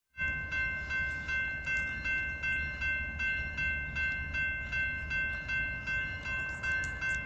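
Railroad crossing bell ringing in a steady, even rhythm of about three strikes a second: the crossing warning is active as the gates come down for a train. A low rumble runs underneath.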